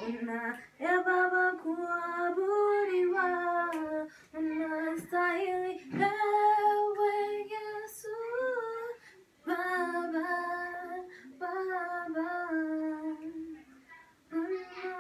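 A woman singing a slow worship song alone, without instruments, in long held phrases with short breaks for breath.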